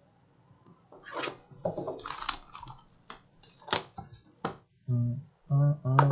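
Plastic shrink wrap crinkling and tearing as a sealed box of trading cards is opened: a run of sharp, irregular crackles. From about five seconds in, short low pitched music notes begin.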